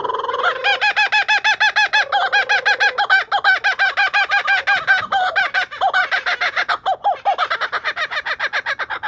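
Laughing kookaburra calling: a long, loud run of rapid, rhythmic chuckling notes, about eight to ten a second, broken by a couple of lower drawn-out notes in the first few seconds.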